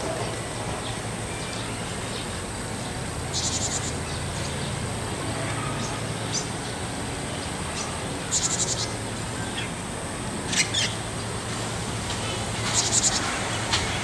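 Japanese tit giving its call notes rather than song: three short, buzzy, rattling calls about four to five seconds apart, with a few thin, sharp high notes between them.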